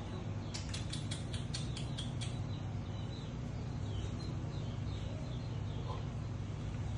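Faint high chirps falling in pitch, repeated every half second or so, from a small animal. A quick run of about ten sharp clicks comes in the first two seconds, over a steady low hum.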